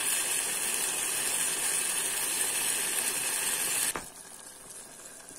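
Pigeon curry simmering in a steel pot: a steady hiss of bubbling and sizzling as the added water cooks down. It cuts off abruptly about four seconds in, leaving only a faint quieter simmer.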